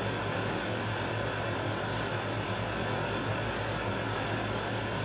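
Steady low hum with an even hiss of background room noise, with no distinct events standing out.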